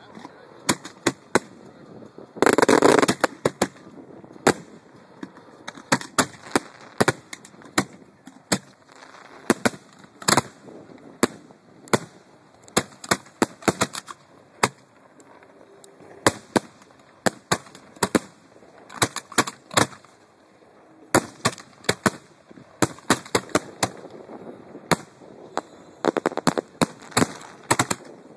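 Professional display fireworks going off at close range: a rapid, irregular series of sharp bangs, with a longer, louder burst about two and a half seconds in.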